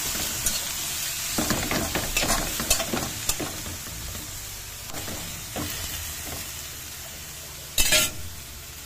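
Cabbage and carrots sizzling in oil in a wok while a slotted spatula stirs and scrapes them against the pan, with a busy run of scrapes and knocks in the first three seconds and a few more later. A short, loud clatter comes near the end.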